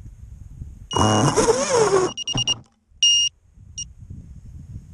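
FPV quadcopter lying in snow with its lost-model beeper sounding short high beeps. About a second in, the motors spin up in a loud burst lasting about a second, rising and falling in pitch, as the craft tips level.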